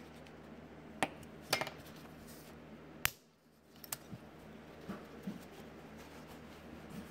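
A few sharp clicks of a metal hobby knife and small styrene sheet pieces being handled and set down on a wooden workbench. The sharpest click comes about three seconds in, followed by a brief hush and then lighter taps.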